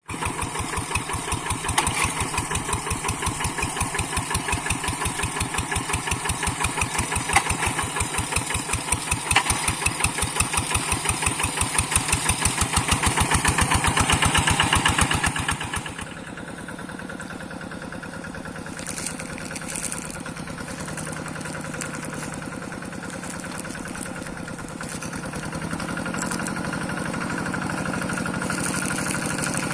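Single-cylinder diesel engine of a two-wheel hand tractor running loud with a fast, even chug. About halfway through it drops to a quieter, smoother run, then grows a little louder again near the end.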